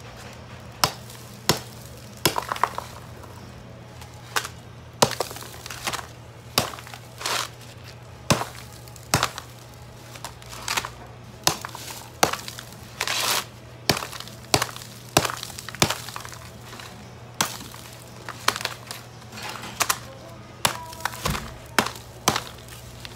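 A block of dry ice being broken apart into chunks: a long series of sharp cracks and knocks, roughly one or two a second, with a few longer crunching scrapes, over a steady low hum.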